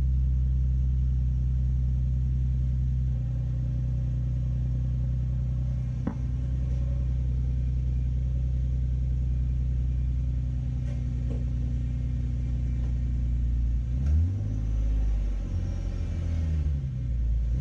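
Nissan 370Z's 3.7-litre V6, fitted with a Takeda long-tube cold air intake, idling steadily, then revved up and back down a couple of times in the last few seconds.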